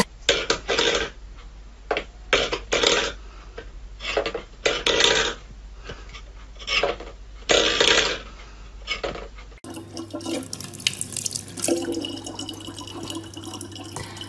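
A run of short, irregular noises, then, about two-thirds in, a kitchen tap running steadily in a thin stream into a plastic bottle.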